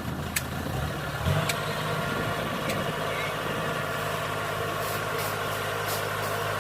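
Engine of heavy farm or earth-moving machinery running steadily. Its note shifts about a second in, and a few light clicks sound over it.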